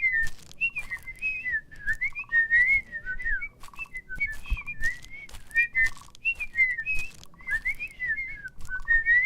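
A person whistling quick, warbling chirps that slide up and down, imitating birdsong, with short buzzy notes and scattered light clicks between them.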